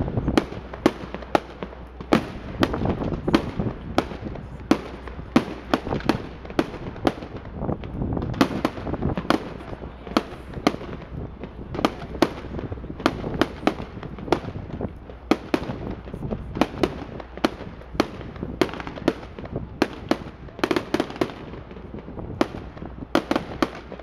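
Fireworks display: aerial shells bursting in a fast, uneven string of sharp bangs, about two or three a second, over a constant noisy background between the reports.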